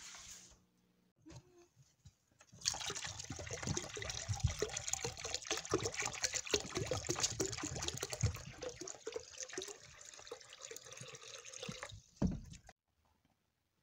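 Water pouring from a plastic one-gallon jug into a ceramic water crock, splashing into the filling bowl for about nine seconds before stopping, with a thump near the end.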